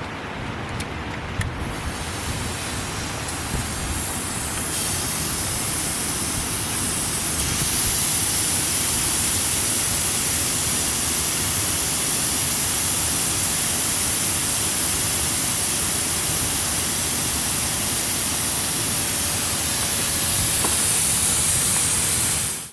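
Steady rushing wind and road noise of a Suzuki Samurai driving on a snowy track, with a strong hiss that grows louder over the first several seconds and then holds.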